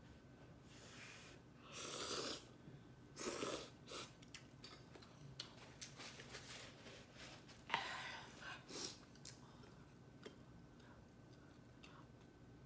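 Eating noises: three short, noisy slurps of hot instant noodles or broth, with quiet chewing and small mouth clicks between them.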